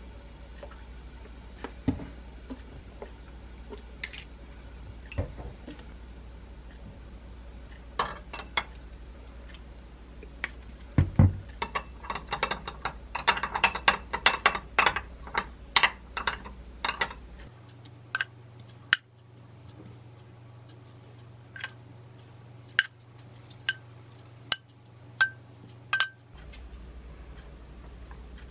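A metal spoon clinking against a small glass bowl while stirring a soy-sauce dressing. A few scattered clicks come first, then a quick run of clinks about halfway through, then single sharp taps about a second apart.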